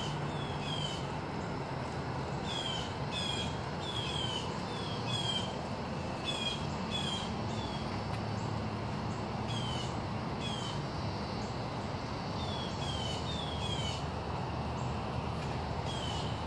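A bird repeatedly giving short, falling chirps, often in quick twos or threes, over a steady low background hum.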